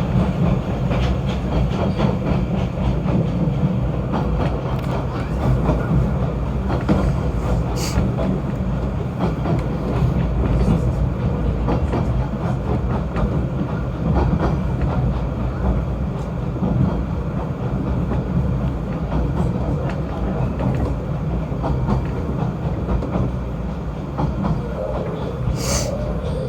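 Snowdon Mountain Railway rack train running steadily, a continuous low rumble with frequent clicks and rattles, and two brief high-pitched sounds, one about eight seconds in and one near the end.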